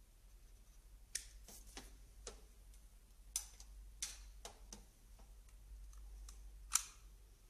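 Scattered sharp plastic clicks and taps from handling a hair straightener, about ten of them at an irregular pace, the loudest near the end, over a faint low hum.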